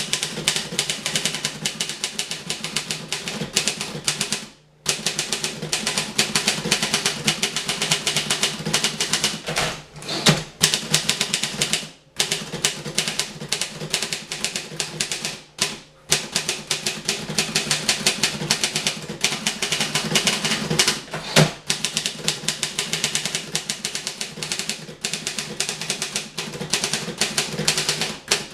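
Rapid, continuous typing on a 1950 Voss ST24 portable manual typewriter during a timed speed test: a dense stream of key and typebar strikes with a few brief pauses.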